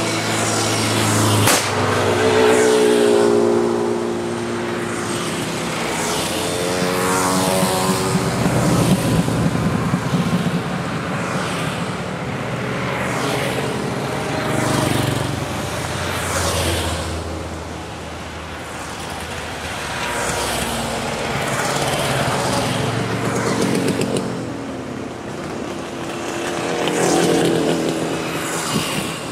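A column of motorcycles, a scooter and a sidecar outfit among them, riding past one after another, each engine swelling and fading as it goes by. A single sharp click sounds about a second and a half in.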